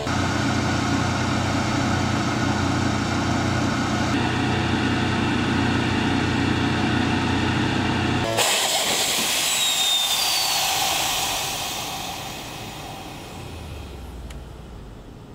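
ScanEagle drone's small piston engine running steadily at high power on the launcher. About eight seconds in the sound changes abruptly to a loud rushing hiss as the drone is catapulted off, and the engine whine then falls in pitch and fades as it flies away.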